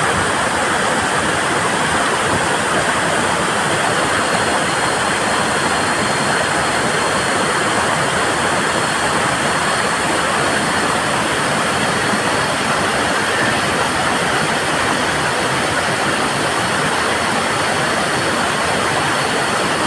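A tall waterfall with a very heavy flow, its water falling onto big boulders in a loud, steady rush. A faint, thin high tone comes in about four seconds in and holds.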